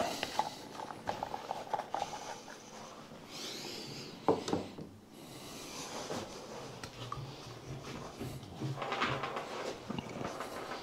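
Handling of plastic shower waste fittings on a table: light clicks, taps and rubbing, with one sharper knock about four seconds in.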